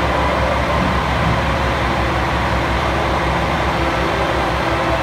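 A train pulling away along the platform track: a steady low rumble with a wash of running noise, echoing under the station roof.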